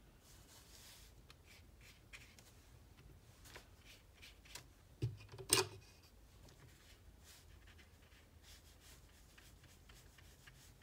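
Faint scratchy strokes of a watercolour brush on paper, with a sharp knock and click about five seconds in as the brush is dipped into the glass water jar.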